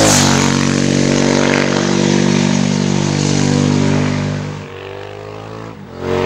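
Racing motorcycle engine at high revs sweeping past through a bend, its note dropping in pitch as it goes by and then fading away. Near the end a motorcycle engine comes in again with a rising note.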